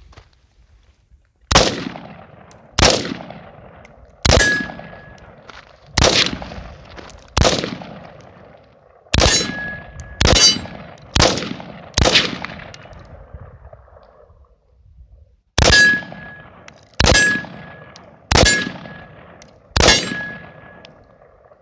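AR-15 rifle fired semi-automatically: thirteen shots about a second apart, nine and then, after a short pause, four more. Several shots are followed by a brief metallic ringing, like a steel target being hit.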